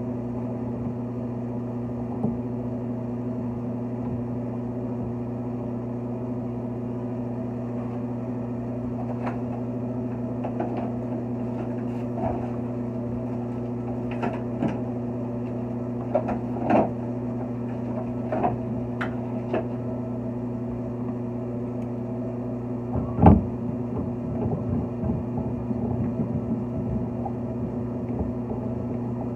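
A steady low hum with scattered light clicks and knocks of small shower trim parts being handled as a temperature control handle is assembled. The loudest knock comes about three-quarters of the way through.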